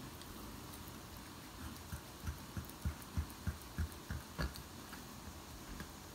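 About nine soft, low thumps, roughly three a second, from knife strokes pressing against a bamboo cutting board while the skin is cut off a flounder fillet; the last stroke has a sharper click.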